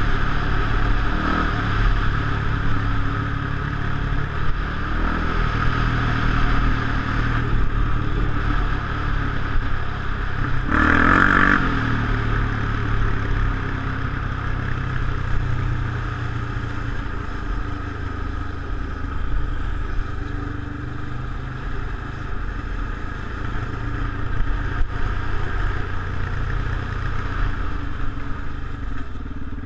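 Off-road motorcycle engine running steadily as it is ridden along a track, heard from a helmet-mounted camera, with a brief louder burst about eleven seconds in.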